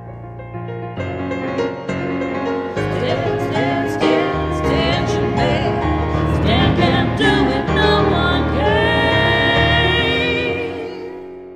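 A song with piano accompaniment: piano chords at first, then a singer's long held notes with vibrato over a fuller backing, swelling and then fading out near the end.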